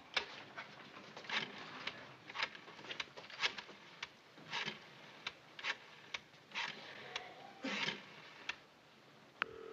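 Rotary telephone dial being wound round and spinning back, digit after digit, each turn a short clicking whir. There is a sharper click near the end.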